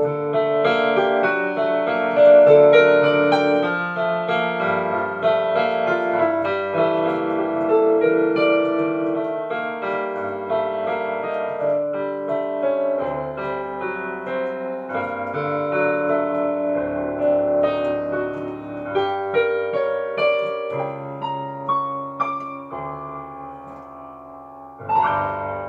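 Solo piano played with both hands: a melody over sustained bass notes that change every second or two. The playing slowly grows softer, then a loud new chord is struck near the end.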